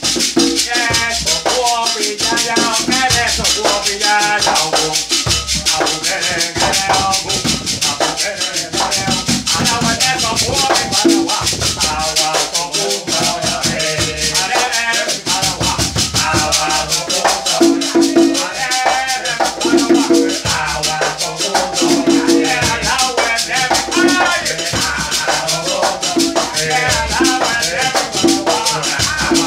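Chekeré (beaded gourd shaker) rattling in a steady rhythm over a hand-played conga drum, whose open tones sound again and again. Voices sing along.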